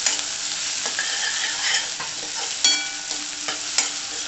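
Chopped onion sizzling in hot oil in a steel kadhai, stirred with a spatula that scrapes and clicks against the pan. One sharp tap a little past halfway leaves a brief ring.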